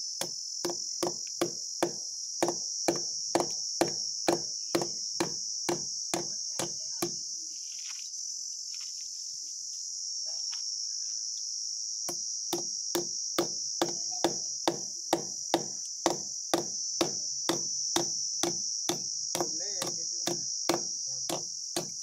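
Lump hammer striking steel saddle clamps to fix a PVC pipe to a wall, in steady blows about two a second. The blows stop for about five seconds midway, then start again. A constant high cricket chirring runs underneath.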